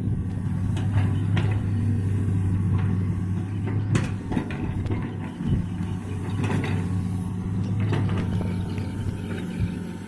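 An engine running steadily at a constant speed, with scattered short knocks and clanks, the sharpest about four seconds in.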